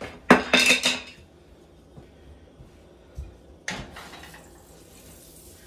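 Kitchen wall cupboard opened and items inside clattering for about a second, followed a few seconds later by a soft knock and a sharper clack of things being handled.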